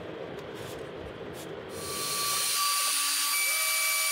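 Makita trim router on a CNC machine spinning up together with a dust-extraction vacuum about two seconds in, settling into a steady high-pitched whine over a rushing hiss.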